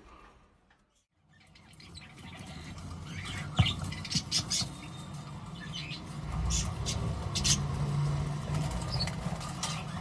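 Kakariki parakeet chicks in a nest box giving short, high chirps and squawks, scattered from a few seconds in, over a low steady rumble.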